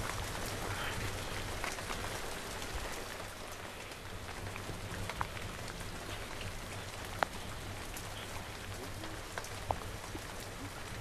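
Steady rain falling, with scattered drops ticking sharply close by.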